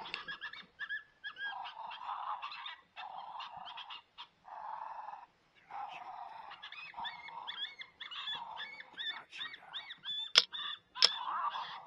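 Coyote yips and whining calls, repeated in short bursts with brief gaps. Two sharp cracks about half a second apart near the end are the loudest sounds.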